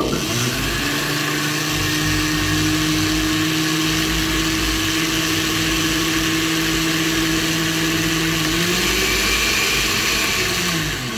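Countertop blender motor switching on abruptly and running steadily, mixing eggs and oil in a glass jar. Its pitch rises slightly about eight and a half seconds in, then it winds down as it is switched off at the end.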